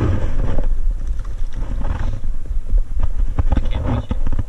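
Wind buffeting a chest-mounted camera's microphone, a heavy, uneven rumble, with short rustles and knocks as the wearer moves his arms and body.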